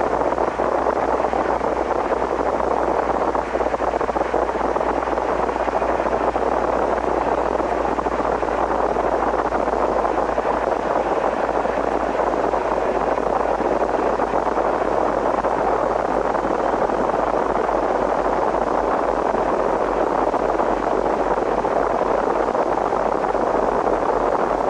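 Steady, even static hiss of a VHS tape-noise effect, with a low hum beneath.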